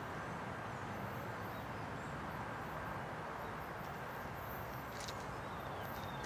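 Steady outdoor background noise beside an empty railway track, an even hiss with a faint low hum underneath. A few faint bird chirps come in near the end.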